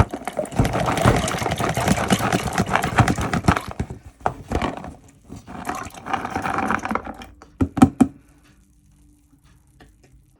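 Soaked red peas (kidney beans) being tipped into a cooking pot: a dense clatter and patter of beans and water falling in, in two pours, followed by a couple of sharp knocks near the end.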